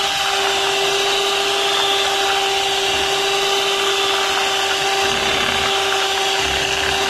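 Electric hand mixer running with a steady motor whine, its beaters whipping a cream mixture with crushed chocolate cookies in a glass bowl.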